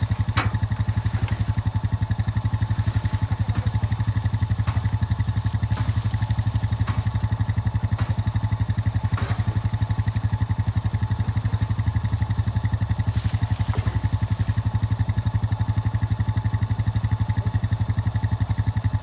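Small engine running steadily at an even speed with a fast regular pulse, with a few light clicks and knocks scattered through.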